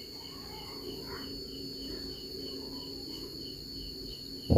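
Crickets chirping steadily: a high pulsing chirp about four times a second over a steady high tone. A sudden loud low sound begins right at the very end.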